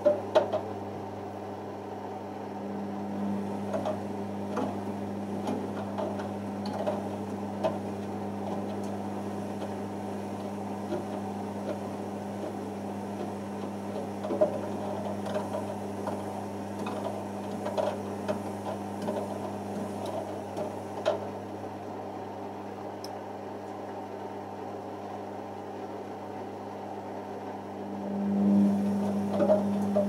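Beko WM6103 front-loading washing machine running its drum slowly with a steady motor hum, with scattered light knocks from the single item tumbling in the drum, in the spin stage after the wash. The hum swells near the end as the motor picks up.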